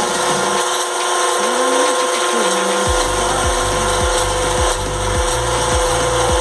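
Rice being stirred around a roasting pan with an iron rod, a steady gritty rasping. Background music runs under it, and its low, regular beat comes in about three seconds in.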